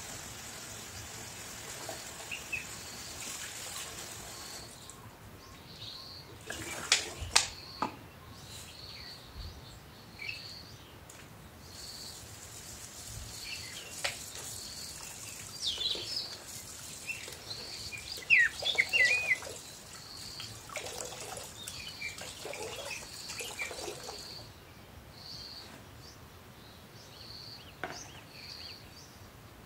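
Kitchen tap running into a metal bowl of water in the sink while raw meat pieces are rinsed and handled, with louder splashes and knocks now and then; the running water stops about three quarters of the way through. A faint high chirp repeats about once a second.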